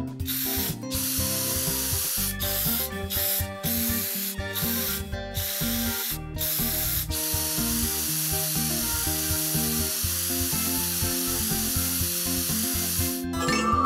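Aerosol spray-paint can hissing: a string of short sprays, then one long spray through the second half that cuts off shortly before the end. Background music runs underneath.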